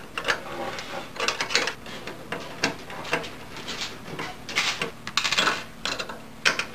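A metal hand tool clicking and scraping against the screws and steel bracket of a flatbed printer's clutch as its four large mounting screws are loosened: irregular clinks and short scrapes.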